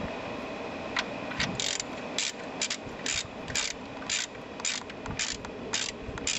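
Hand ratchet wrench clicking in short strokes, about two clicks a second starting about a second in, as the wheel nuts on a garden tractor are given their final tightening.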